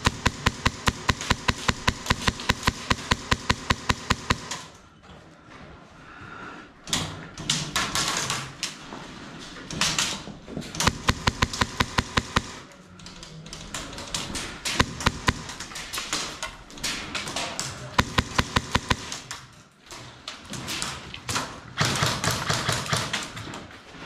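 Bursts of rapid full-auto airsoft gunfire, each shot a sharp crack in quick even succession: one long burst of about four and a half seconds at the start, then several shorter bursts with scattered taps and knocks between them.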